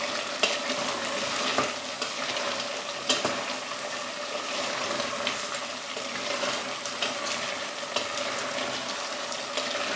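Food sizzling as it fries in a pot, stirred with a wooden spatula that now and then knocks lightly against the pot.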